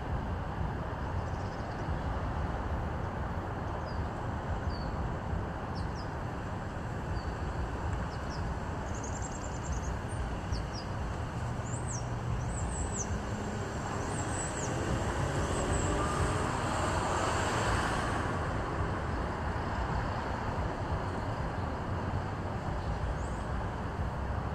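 Steady background rumble and hiss, like traffic noise, swelling for a few seconds past the middle, with a few faint short high chirps before it.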